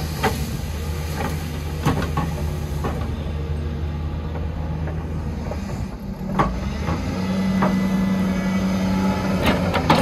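Heavy diesel earthmoving machinery running steadily, with sharp metal clanks every second or two. The engine note shifts higher about seven seconds in and holds there for a couple of seconds, as under load.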